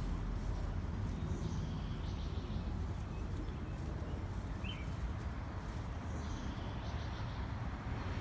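Outdoor ambience: a steady low rumble with a few faint bird chirps over it, one short chirp a little after the middle.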